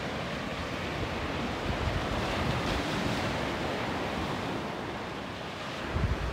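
Small waves washing onto a sandy beach in a steady rush, with wind on the microphone. A brief low rumble of wind noise comes near the end.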